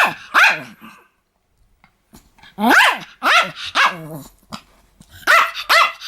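Pomeranian barking: one bark at the start, a pause, then a quick run of several barks.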